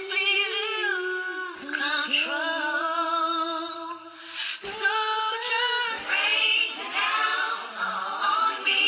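Music: mostly unaccompanied singing, with a female voice to the fore and layered voices.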